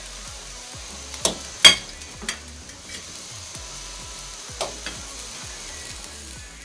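Water at a rolling boil in a cooking pot, a steady bubbling hiss, with a few sharp clicks of a utensil against the pot, the loudest about two seconds in.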